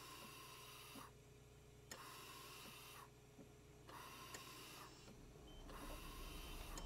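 Faint, slow, regular breathing: about four breaths, each a soft hiss of about a second, with pauses of about a second between them, over a low steady hum.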